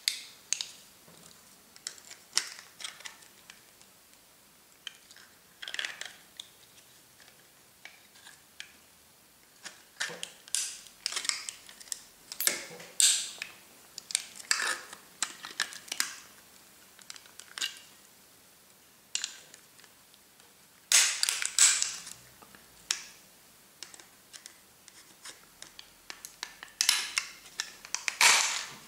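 Plastic housing and gearbox of a Honeywell HR92 radiator valve controller being forced apart by hand. Irregular sharp clicks, cracks and scrapes come in clusters, the loudest about three-quarters of the way through.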